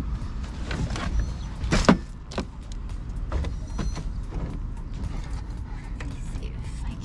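Metal dog-grooming gear, a grooming arm and table parts, being lifted and shifted about: a string of knocks, clatters and creaks, the loudest knock about two seconds in, over a low steady rumble.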